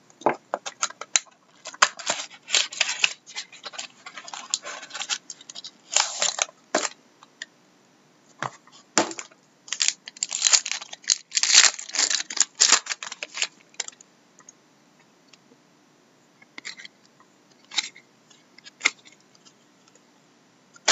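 A trading-card pack's wrapper being torn and peeled open, with rustling and sharp clicks and snaps. After that the cards are slid out and handled, with sparser clicks near the end.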